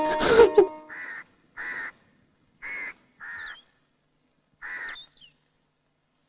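A crow cawing five times, with a few faint, high bird chirps between the caws. Sitar music dies away in the first moment.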